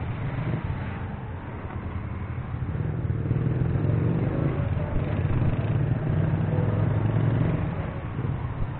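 Motor vehicle engine running at low road speed, heard on board, with street traffic noise around it; the engine grows louder about two seconds in and eases off near the end.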